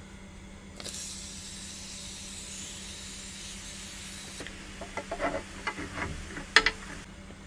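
Aerosol can of shaving foam spraying, a steady hiss for about three and a half seconds, followed by a few short faint ticks.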